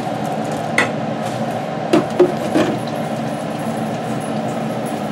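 A few short sharp knocks and clinks, one about a second in and three close together around two to two and a half seconds in, as a wire deep-fryer basket and tongs tip fried tater tots into a glass casserole dish. A steady background hum runs under them.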